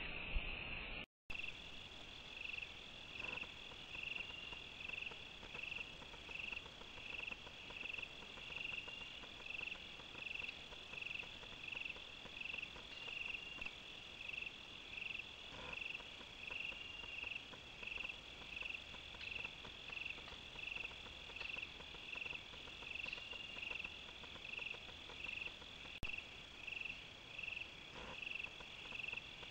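Crickets chirping in a steady rhythm, about two chirps a second, over a continuous high insect trill.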